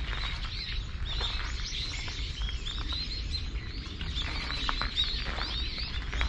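A crowd of small songbirds chirping and twittering in the trees, a steady overlapping chatter of short high calls, over a low steady rumble of outdoor air.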